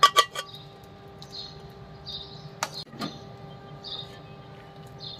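Stainless steel ladle clinking against a steel pan, a quick run of knocks at the start that leave a ringing tone and two more about three seconds in, as boiled dal is poured into the masala and stirred.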